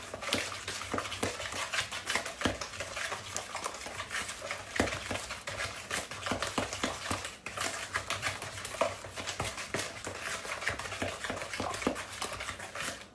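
A utensil stirring pie-filling batter of eggs, sugar, flour and melted butter in a mixing bowl: a quick, continuous run of clicks and scrapes against the bowl that pauses briefly about halfway and stops just before the end.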